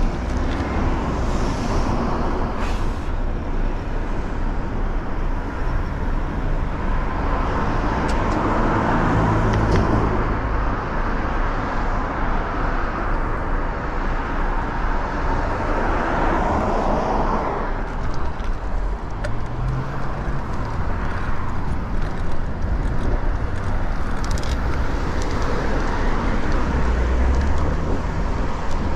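Road traffic heard from a moving bicycle: a steady rushing noise with cars swelling past several times, notably about eight seconds in and again around sixteen seconds.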